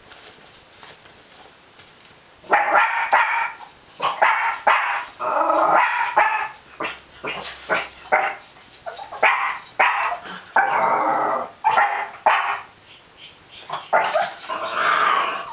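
Dog barking repeatedly, starting about two and a half seconds in: a long run of loud barks.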